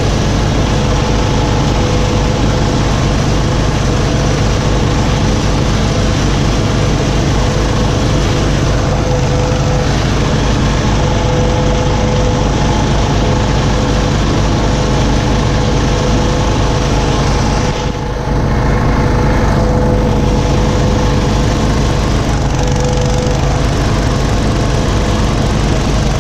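Small garden tractor engine running steadily, with a brief dip in level about eighteen seconds in.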